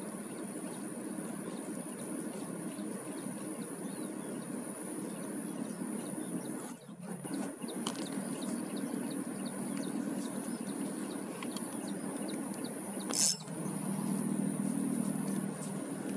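Steady outdoor background noise with a thin, high, steady whine throughout. The sound dips briefly about seven seconds in, and there is one sharp click about thirteen seconds in, the loudest sound here.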